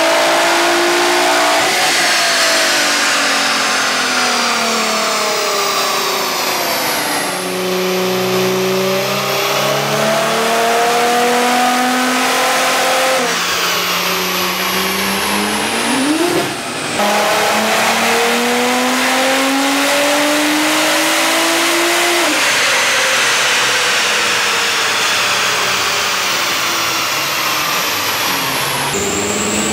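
Nissan GT-R R35's twin-turbo V6 at full throttle on a chassis dyno, the engine note climbing in pitch through each gear and dropping back at each upshift, about every six seconds. A second run follows partway through.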